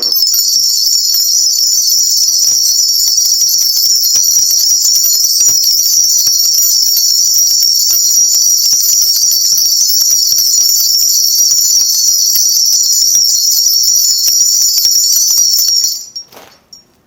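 Korean shaman's ritual bells (a cluster of small brass bells on a handle) shaken hard and continuously in a loud, steady jingle that stops about sixteen seconds in. They are shaken to consult the spirits before the reading is answered.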